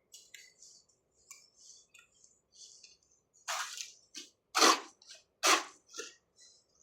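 Three loud, short, noisy scraping or swishing sounds about a second apart, with a few softer ones around them, over faint high chirping of birds or insects.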